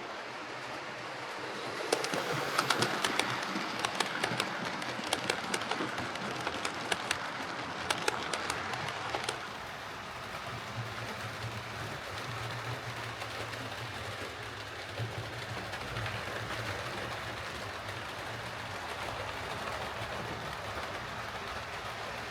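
Hornby King Class OO gauge model steam locomotive running along the track with a steady mechanical hum. Sharp clicks sound for several seconds and stop about nine seconds in.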